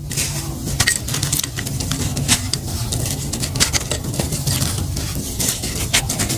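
Fingers rubbing and crumbling a dry, gritty lump by hand. There is a steady grainy crunching, with many small crackles and ticks as bits of grit break off and pour down.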